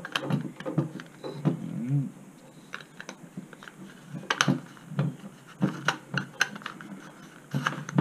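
Plastic ceiling rose cover being screwed back onto its base by hand: scattered light clicks and rubbing of plastic on plastic, a handful of sharper ticks in the second half.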